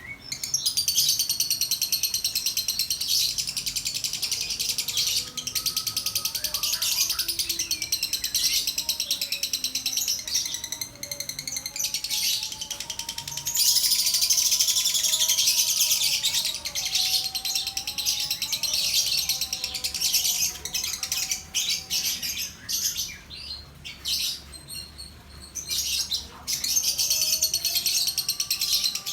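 Lovebird chattering in long, fast, high-pitched runs, broken by a couple of short lulls.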